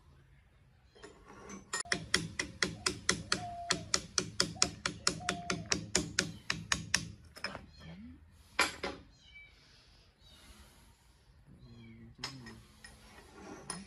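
A quick, even run of clicks, about five or six a second for about five seconds, from hand work on an old BMW gearbox's mainshaft and synchro hub assembly. A single sharper click follows a little later.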